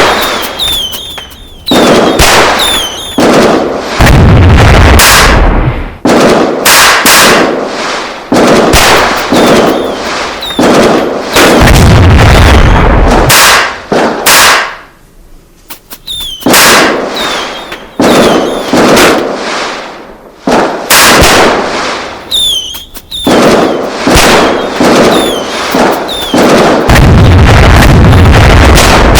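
A dense run of loud sudden bangs and pops, one after another, with short whistling glides between some of them. In three places a longer deep rumbling boom is held for a second or two.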